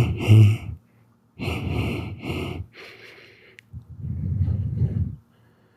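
A man's wheezy, heavy breathing in several short breathy bursts with brief pauses between them.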